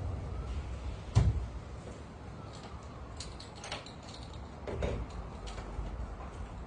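Freshly repaired sliding door being slid and shut: one loud knock about a second in, then several lighter clicks and knocks.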